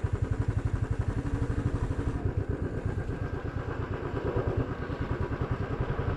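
Motorcycle engine running with an even, rapid thumping beat.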